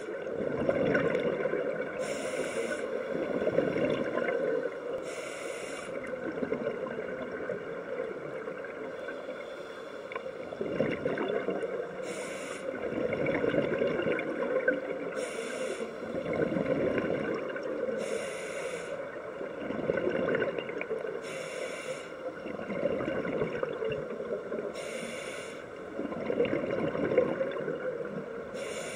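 Scuba regulator breathing heard underwater: a short hiss on each inhale, then a longer bubbling rush of exhaled air, repeating every few seconds.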